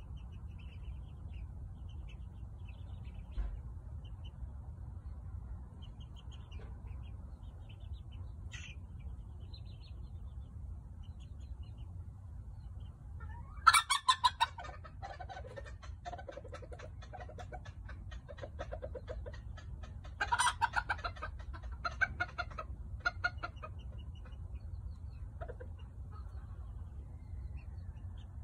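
White Serama rooster crowing about halfway through, then giving a second, shorter run of calls a few seconds later.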